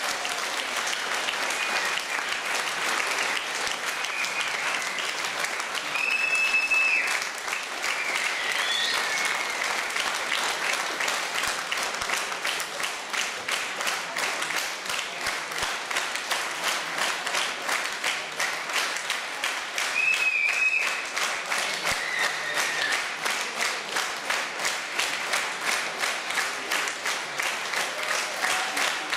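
Audience applauding a curtain call. The clapping settles into a steady, even rhythm from about ten seconds in, with a few short high calls over it.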